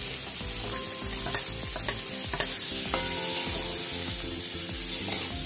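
Diced onion, capsicum and green chilli sizzling in hot oil in a metal kadai as a metal spatula stirs them, scraping and clicking against the pan, with the sharpest click near the end.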